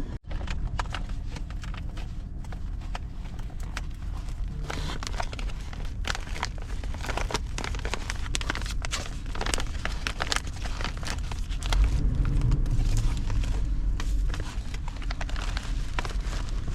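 Foil-lined freeze-dried meal pouch crinkling and rustling as it is opened and handled, over a steady low rumble that swells for a couple of seconds near the end.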